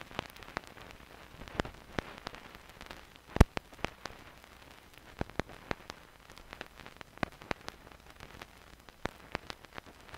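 Faint crackle: a low hiss scattered with irregular clicks and pops, a few a second, one sharper pop about three and a half seconds in.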